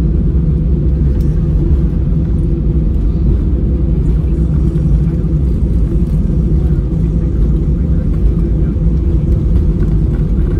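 Steady low rumble of an Airbus A320 airliner, heard from inside the passenger cabin.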